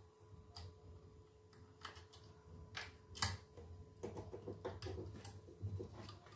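Faint scattered clicks and taps of fingers working speaker wire onto a subwoofer driver's terminals, growing busier after about four seconds. A faint steady tone sounds underneath.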